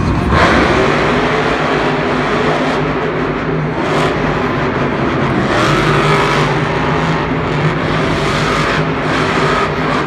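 Monster truck's supercharged V8 engine running loud as the truck drives across the arena, its pitch rising and falling as it is throttled up and down.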